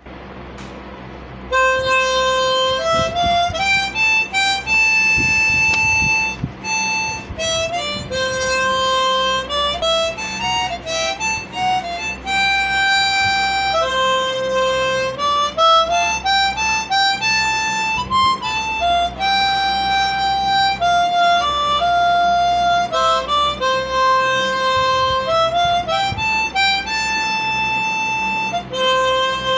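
Background instrumental music: a single melody line of held notes and quick stepwise runs, coming in about a second and a half in.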